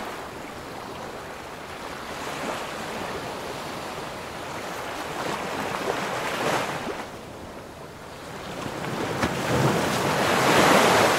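Whooshing, wind-like swells of noise from an outro title animation's sound effects, rising and falling several times and loudest near the end.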